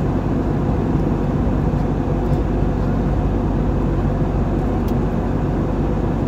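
Airliner cabin noise in cruise flight: a steady, deep rumble of engines and rushing air.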